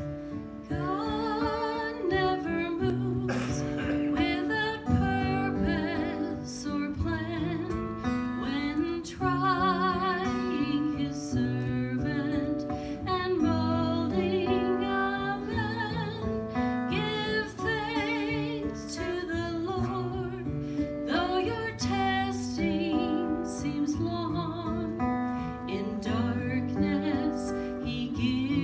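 A woman singing a solo with vibrato into a handheld microphone, accompanied by an acoustic guitar.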